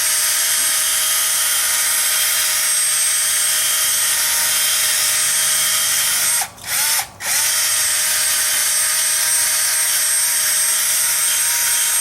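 Power drill spinning a wire brush against the rusty hub bore and mounting face of the rear knuckle, scrubbing off corrosion so the new wheel bearing hub will seat. It runs steadily at high speed, stops briefly twice a little past halfway, and starts up again.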